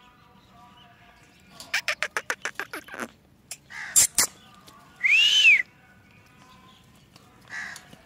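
Rose-ringed parakeet calls: a quick run of about a dozen short sharp notes, two harsh bursts about four seconds in, then one loud whistle-like call that rises and falls about five seconds in.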